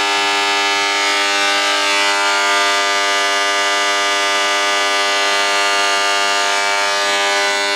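Loud, steady electrical buzz from a ball-bearing motor rig fed heavy AC current from a welder: a dense, unchanging stack of hum tones. The rotor hardly turns while it buzzes.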